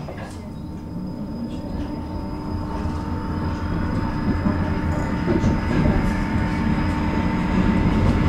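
Electric tram heard from inside the passenger car as it pulls away and gathers speed: the rumble of wheels on the rails grows steadily louder, over a steady electrical hum.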